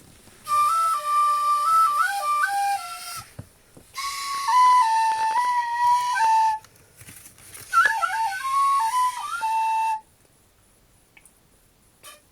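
Cheap tin whistle played in three short, halting phrases of held notes stepping up and down, with a breathy hiss over them; it sounds very bad.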